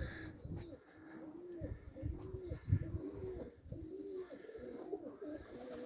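Domestic pigeons cooing: a run of short rising-and-falling coos, one after another, overlapping.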